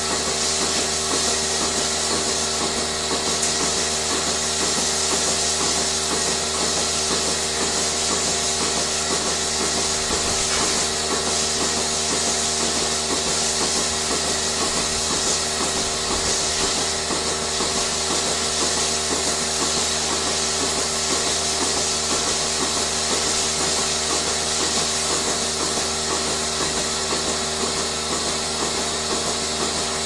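Milking parlour machinery running steadily: the vacuum system hums and hisses while the milking units give a fast, even rhythmic pulsing.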